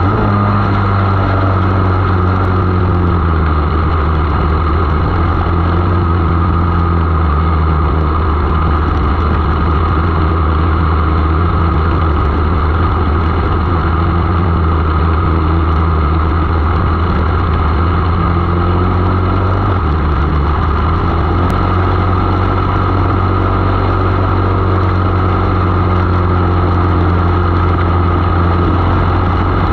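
500 mini sprint race car's engine running hard at racing speed, heard from on board the car. A steady drone that shifts slightly in pitch about twenty seconds in.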